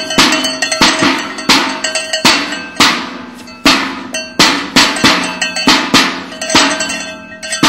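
Metal clanging, struck over and over about twice a second, each clank ringing on at the same few pitches, with a longer pause about three seconds in.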